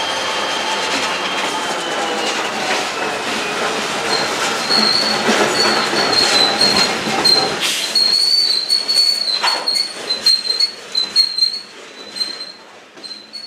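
Freight train passing close by. In the first few seconds the diesel locomotives' engine drone slowly falls in pitch as they pull away. After that the cars roll by with clicking wheels and a high, wavering wheel squeal from about four seconds in.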